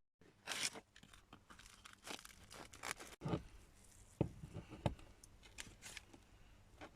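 Faint, scattered crinkling, tearing and crunching: fresh crusty bread being torn and its paper bakery bag handled.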